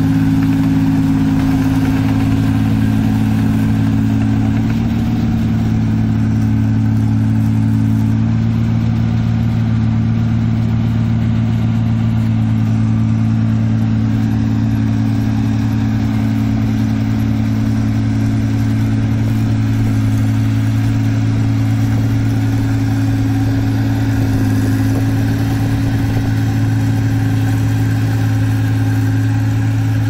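New Holland Clayson 8060 combine harvester's engine running steadily under load while harvesting, a deep even hum that holds the same pitch throughout.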